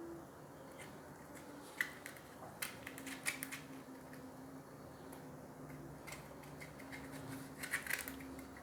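Faint scattered clicks and light taps, in a cluster two to three and a half seconds in and another near the end, from small tap and shower fittings being handled and cleaned. A faint steady hum lies beneath.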